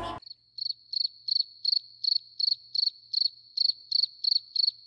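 Cricket chirping sound effect: a short, high chirp repeated evenly about three times a second, with no other background sound.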